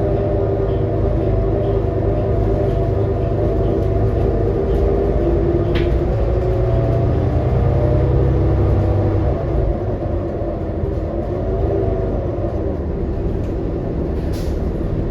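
New Flyer XD40 diesel transit bus heard from inside while under way: engine and drivetrain running with a low rumble and a steady whine of several tones that bend slightly, easing off about two-thirds of the way through.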